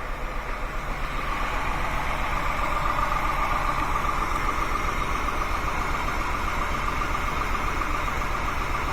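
A 2001 Honda Accord's 3.0 V6 idling steadily with a misfire; its idle does not change with cylinder 1's coil unplugged, which the owner takes for a bad cylinder 1 ignition coil. It gets a little louder about a second in.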